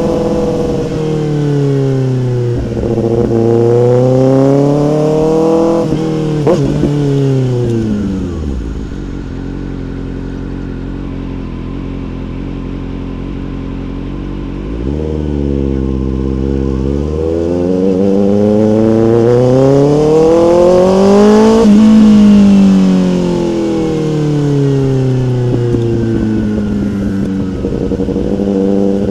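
Motorcycle engine revving and easing off: its pitch rises and falls several times, settles lower and steadier for a few seconds in the middle, then climbs to its loudest, highest point near the end before dropping again.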